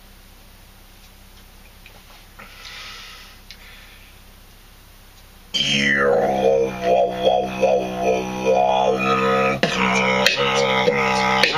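Faint sipping from a glass, then about halfway through a beatboxer's voice cuts in with a falling sweep. It goes on to a steady hummed drone, like a didgeridoo, under rhythmic mouth beats.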